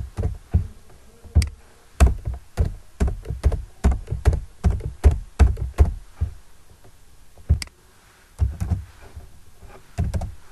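Computer keyboard keystrokes: a quick run of sharp taps, about four a second, for the first six seconds, then a few scattered presses.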